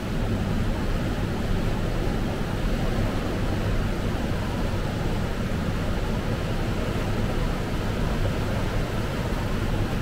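Water rushing steadily over a canal waterfall: a deep, even rushing noise with no break or change.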